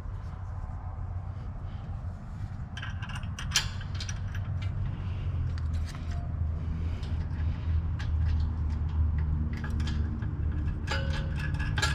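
Scattered light metal clinks and scrapes of a Wald 535 steel wire basket being handled and fitted onto a bike's rear rack, busiest about three seconds in and again near the end, over a steady low rumble.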